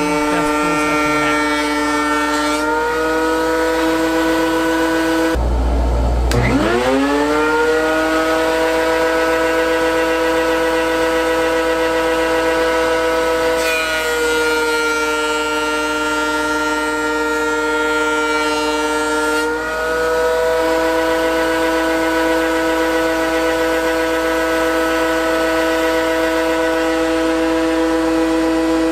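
DeWalt DW735 thickness planer with its original three-knife cutterhead running with a loud, high whine, mixed with a shop vacuum pulling chips from its dust port. The pitch steps down and back up as boards feed through, and about five seconds in the whine breaks off and spins back up from low.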